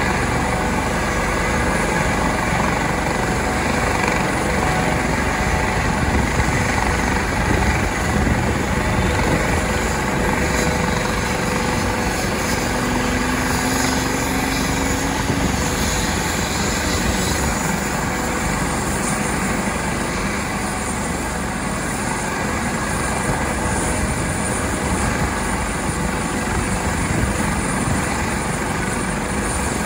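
Air ambulance helicopter running steadily on the ground, its engines and rotor producing a continuous noise with a steady whine, as it waits to lift off.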